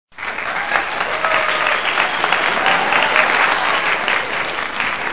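Applause sound effect: a crowd clapping, starting abruptly and running steadily.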